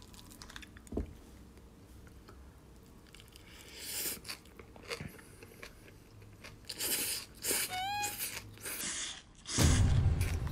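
Quiet eating sounds: a spoon clicking against a plastic bowl and chewing on a mouthful of barley bibimbap with young-radish kimchi. A short rising tone comes about eight seconds in, and a loud low boom near the end.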